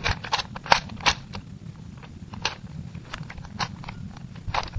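Plastic Rubik's Cube layers being turned by hand: a run of quick, irregular clicks, several close together in the first second and then a few scattered ones, over a low background hum.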